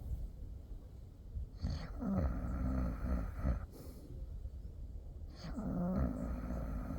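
Slow, regular snoring: two snores about four seconds apart, each lasting around two seconds with a low buzzing pitch, and quieter breathing between them.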